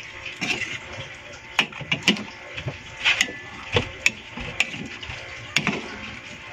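A cooking utensil stirring a thick mix of beans, vegetables and coconut milk in a stainless-steel pot. It knocks and scrapes against the pot in irregular strokes, about eight sharp clinks spread through.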